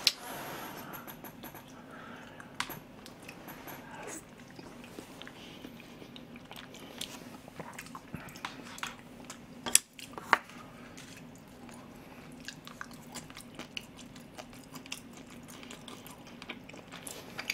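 A person eating soft rice porridge close to the microphone: quiet chewing and mouth smacks, with many small clicks scattered throughout and a few sharper ones, the loudest about ten seconds in.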